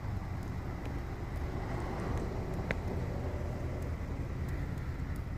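Steady low outdoor background rumble, with one faint sharp tap about two and a half seconds in.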